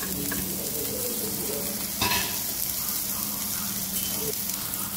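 Chopped onions sizzling in hot oil on a dosa tawa: a steady frying hiss, with one brief knock about two seconds in.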